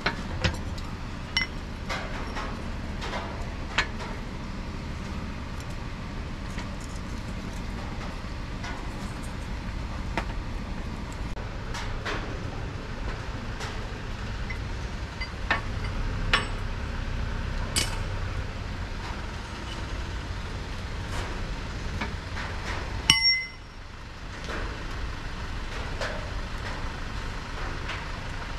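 Metal tools and parts clinking and tapping against a steady low rumble. About 23 s in there is one loud metallic clang that rings briefly.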